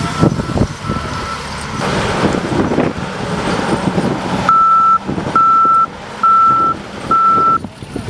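Reversing alarm of a wheel loader beeping. It is faint under engine and movement noise at first, then four loud, evenly spaced beeps come in the second half, about one a second.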